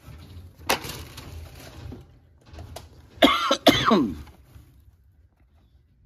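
A man coughs hard twice about three seconds in, with a rough, voiced tail that falls in pitch; this is the loudest sound. Earlier there is a sharp click and a second or so of rustling as blister-carded toy cars are handled in a cardboard box.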